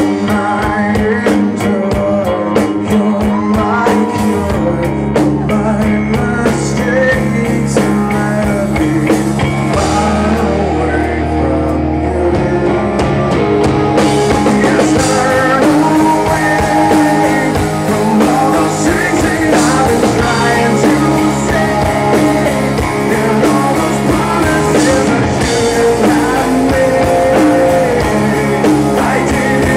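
Live rock band playing a song: electric guitars, bass and drum kit, with a male lead singer at the microphone.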